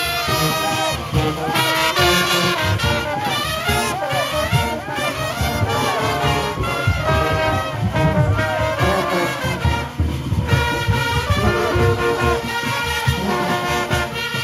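Junkanoo parade band playing: brass horns carrying a loud melody over a dense, driving drum beat.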